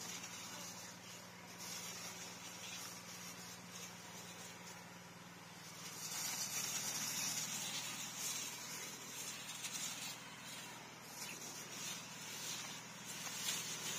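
Pesticide mist hissing from a hose-fed hand spray gun onto citrus foliage, louder about six seconds in, with a steady low hum underneath.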